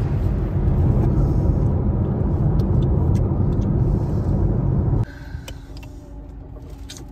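Road and wind noise inside a moving Honda car, a loud low rumble that drops suddenly to a quieter steady cabin hum about five seconds in.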